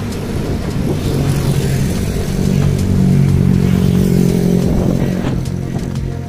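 A motor vehicle's engine running steadily at low speed, growing louder and slightly higher in pitch around the middle, then easing back about five seconds in.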